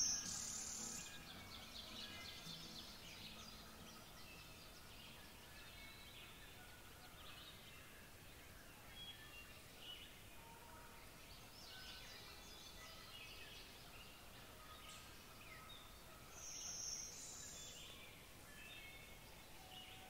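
Blue-winged warbler singing its high, buzzy two-part song twice, at the start and again about 17 seconds in, over faint scattered chirps of other birds.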